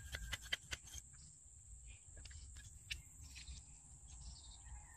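A rod tamping the load down the barrel of a homemade black-powder pistol: a run of quick light taps, about five or six a second, that stop about a second in. Faint steady high background hum after that.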